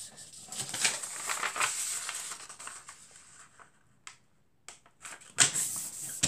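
A sheet of printer paper rustling and crackling as it is folded and creased by hand. It goes quiet for about a second and a half, then a louder rustle comes near the end as the sheet is lifted and turned over.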